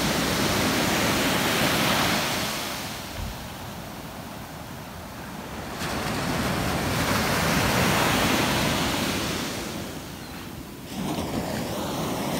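Ocean surf: waves breaking and washing up the beach, the rush swelling louder and fading back twice, then building again near the end.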